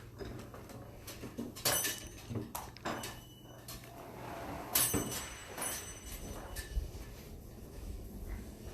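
A door being opened and handled: a few sharp clicks and knocks, the two loudest followed by a brief metallic ring from the latch, over a steady low hum.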